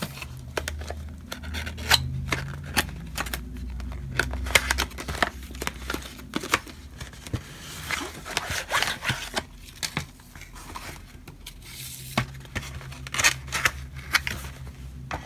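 Cardboard packaging being opened and a clear plastic ring binder slid out of it by hand: rustling and crinkling with many sharp, irregular clicks and scrapes.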